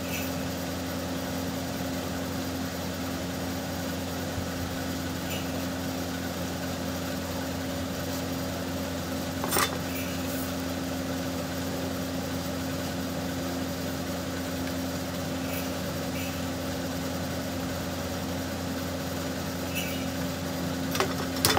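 Steady low machine hum, like a fan or motor running, with a few short clicks and taps from handling the circuit board and soldering iron, one about halfway through and a couple near the end.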